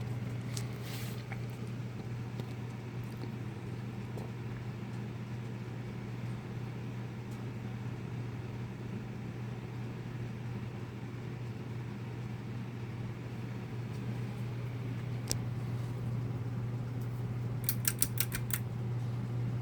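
2007 Harbor Breeze Armory 42-inch ceiling fan running with a steady motor hum. A few short clicks come near the start, and a quick run of about five clicks comes near the end.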